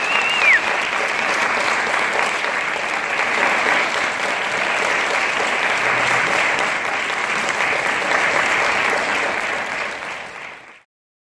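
Audience applauding steadily, with a short high whistle right at the start. The applause fades out near the end.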